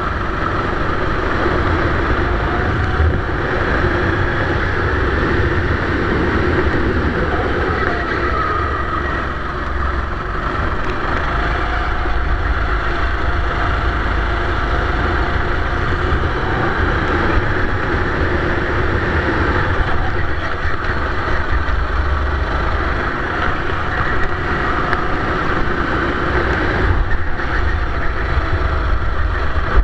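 Sodi rental kart's engine running hard on track, heard close up from the kart itself, its pitch rising and falling with the throttle through the corners.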